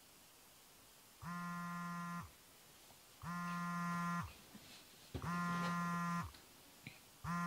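Mobile phone buzzing with an incoming call: four steady buzzes of about a second each, roughly two seconds apart.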